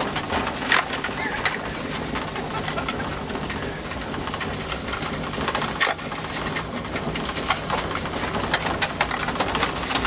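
Steady hissing noise of a van driving over a snowy road, heard through its open rear doors, with frequent light clicks and rattles and a sharper knock about six seconds in.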